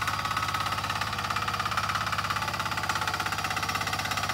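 Walking tractor's single-cylinder diesel engine (a 178-type) chugging steadily with a fast even beat while it pulls a plough through wet paddy soil.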